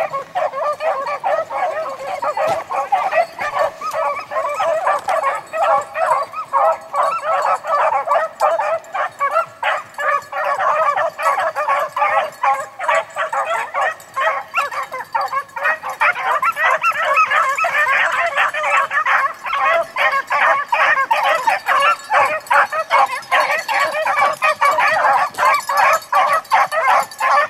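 A pack of beagles baying in full cry as they run a rabbit's trail, many calls overlapping without a break. The chorus grows denser and louder about halfway through.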